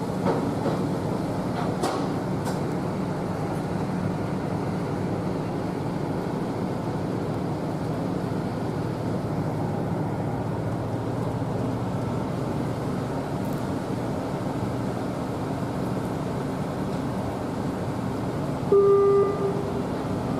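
Steady drone of a passenger ferry's engines underway, with a short horn blast near the end.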